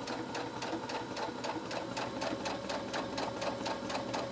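Baby Lock Jubilant sewing machine stitching at a steady speed: an even clatter of about six or seven stitches a second over the motor's hum.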